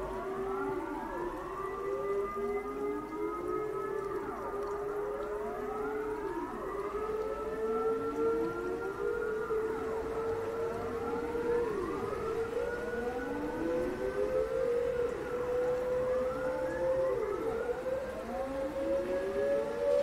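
Dutch public warning siren test: a modulator siren sounds a held tone that climbs slowly in pitch, with repeated rising-and-falling wails sweeping over it.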